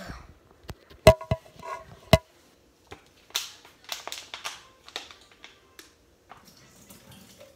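Three sharp knocks with a brief ring between one and two seconds in, followed by a run of crinkling and clicking from a thin plastic water bottle being squeezed and handled.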